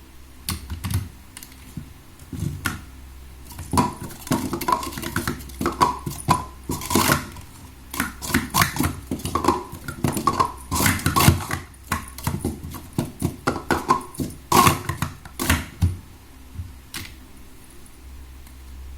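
Plastic sport-stacking cups clicking and clattering against each other and the table in quick runs, densest in the middle and stopping a couple of seconds before the end.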